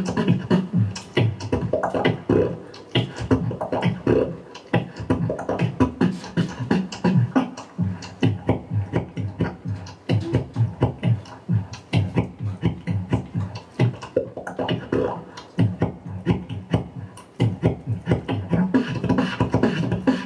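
Solo beatboxing into a cupped handheld microphone: a fast, steady rhythm of vocal kick, snare and hi-hat strikes with low bass sounds underneath.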